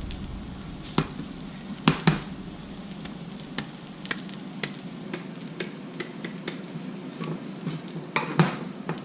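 Fried rice and egg sizzling in a hot pan while a utensil folds it, with irregular clacks of the utensil against the pan; the sharpest clacks come about one and two seconds in and near the end. The egg is cooking through in the heat of the rice.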